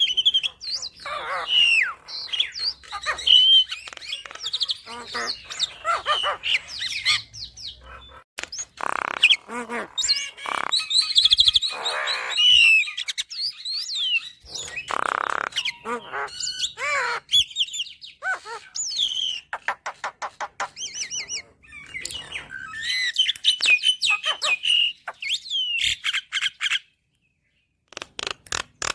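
Javan myna singing a long, varied song of rapid chirps, whistled glides and a few harsh rasping notes. The song breaks off for about a second near the end, then resumes.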